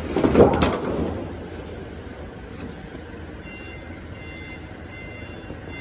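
A large roll of rubber sheet being shifted and unrolled by hand: a brief rustle and flap of the sheet with a few sharp clicks in the first second, then a steady factory background hum with a few faint short beeps.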